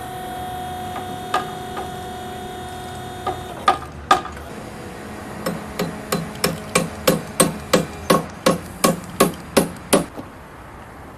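A steady machine hum stops about three and a half seconds in. Then a hammer strikes a large timber beam: two blows, followed by an even run of about a dozen quick blows, roughly three a second.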